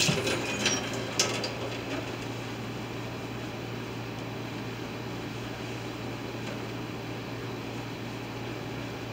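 Quiet kitchen room tone: a steady low hum, with a couple of light clicks and knocks about a second in.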